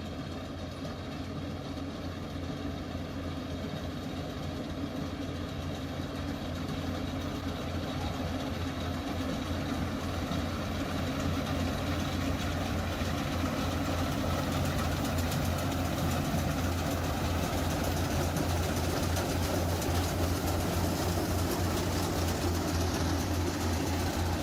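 Rice harvesting machine's engine running steadily with a low hum, growing gradually louder.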